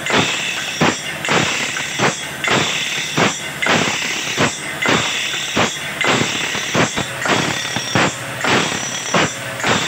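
Automatic band saw sharpener grinding the teeth of a wide sawmill band saw blade one by one. An abrasive wheel strikes in a regular beat about twice a second, over a continuous grinding hiss and a steady high whine.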